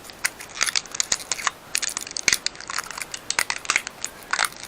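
Hands working the plastic body of a Philips AquaTouch electric shaver: many quick, irregular plastic clicks and scrapes.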